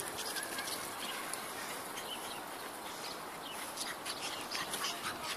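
Two puppies playing: faint scattered clicks and small high squeaks over a steady outdoor hiss.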